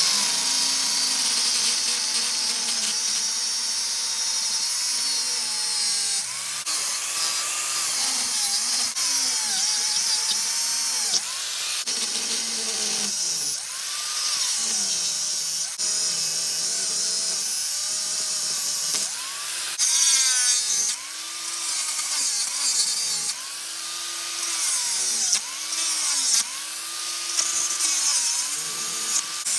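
Handheld power tool cutting into seized CV-joint bolts, its motor pitch dipping and recovering again and again as it bites into the metal, with a hissy grinding over it.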